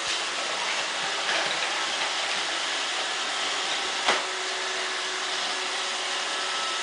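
iRobot Roomba robot vacuum running steadily, with a sharp knock about four seconds in.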